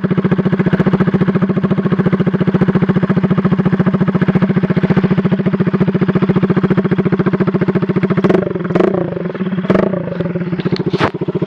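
GY6-type 139QMB four-stroke scooter engine running steadily, very loud through a gutted muffler: the tip and all baffles are gone, leaving only the empty can. Past the middle, a few sharp knocks sound over the engine.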